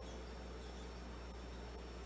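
A quiet lull in soft acoustic guitar music: mostly a steady low hum, with a few faint, short high squeaks.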